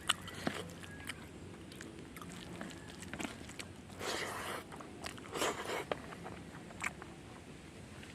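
Close-up eating sounds of a person chewing a meal of fish curry: scattered crisp bites and clicks, with two longer spells of crunchy chewing about four and five and a half seconds in.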